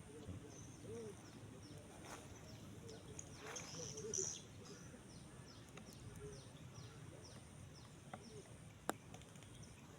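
Faint outdoor ambience: a short high chirp repeating two or three times a second, over a steady, pulsing high tone. A brief rustle comes about four seconds in, and a single sharp click near the end.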